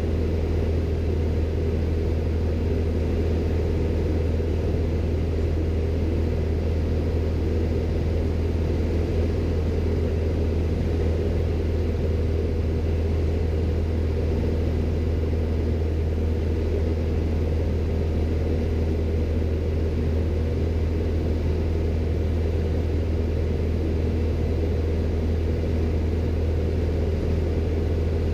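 Single-engine light aircraft's piston engine and propeller droning steadily in flight, heard from inside the cockpit.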